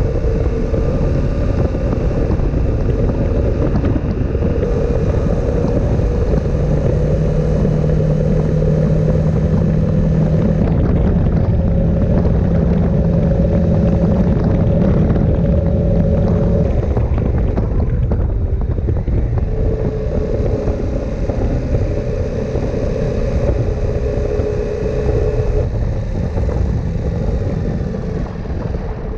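KTM 890 Adventure R's parallel-twin engine running under way at steady riding speed, its note holding for long stretches and changing pitch a few times, with wind rushing over the microphone.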